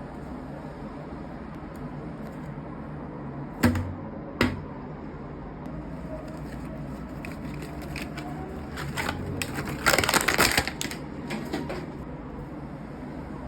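Two sharp knocks, then a burst of rapid clicking and clattering, over a steady low hum.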